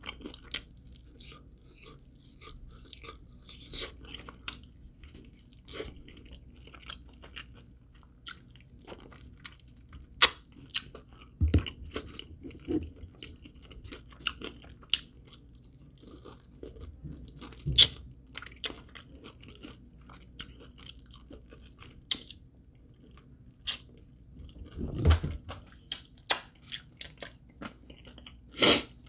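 A person eating fried chicken wings: chewing with irregular crisp crunches and mouth clicks, several louder crunches scattered through.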